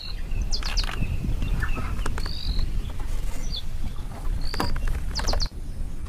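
Birds chirping: short, high calls in small groups every second or so, over a steady low rumble.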